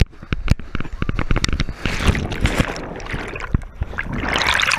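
A canyoner sliding down a water-filled rock chute: rushing, splashing water with many sharp knocks and scrapes against the action camera, the water loudest near the end as they plunge into the pool.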